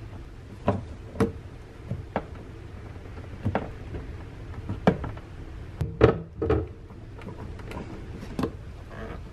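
Metal screwdrivers prying and slipping against the plastic line fittings on top of an in-tank fuel pump assembly: irregular sharp clicks and knocks, with the loudest pair about six seconds in.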